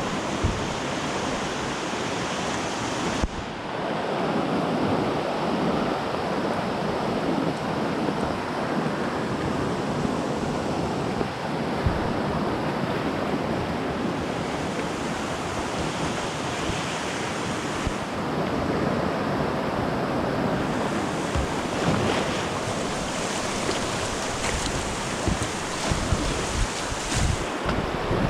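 Rushing whitewater of class II river rapids, a steady noisy rush of water with wind buffeting the microphone. Scattered low thumps come in during the last few seconds.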